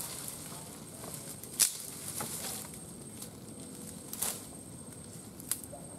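Leaves and twigs rustling as a long branch is dragged through the undergrowth and thrown aside. Three sharp cracks of twigs snapping, the loudest about one and a half seconds in.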